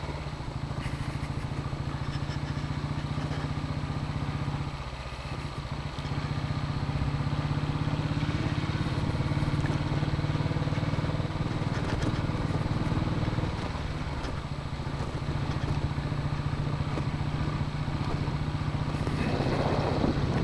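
Royal Enfield single-cylinder motorcycle engine running steadily under way. The engine note eases briefly about five seconds in and again about two-thirds of the way through.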